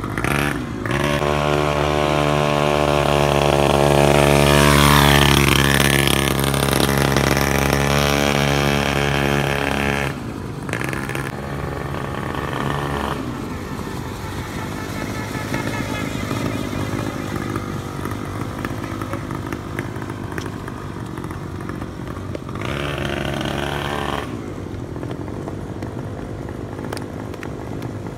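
Small engine of a 50cc mini ATV running, loud and steady in pitch for the first ten seconds or so. It then goes fainter and rougher, with another short louder stretch about 23 seconds in.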